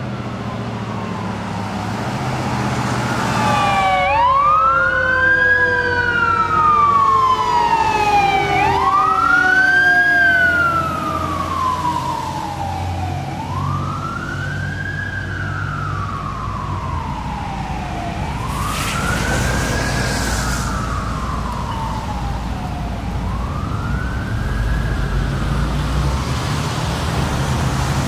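Fire truck siren wailing as the apparatus drives away: each cycle climbs quickly and falls slowly, about every four to five seconds. In the first half a second siren tone glides down across it, and a steady low traffic rumble runs underneath.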